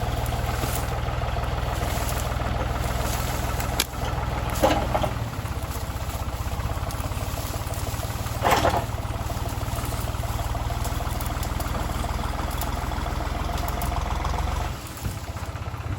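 Tractor engine running steadily, with a few brief louder noises over it; the engine hum drops away near the end.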